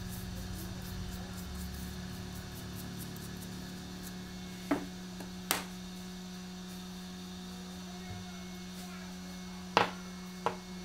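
A steady low electrical hum, with four sharp clicks of small phone parts and tools being set down on a hard tabletop: two about a second apart near the middle, two more near the end.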